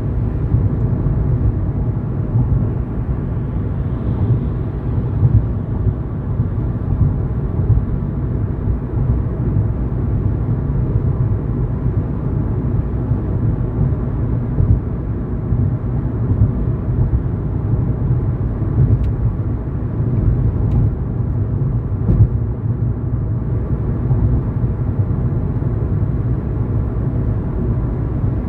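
Steady low road and engine rumble of a car driving along, heard from inside the vehicle. A few faint clicks come about two-thirds of the way in.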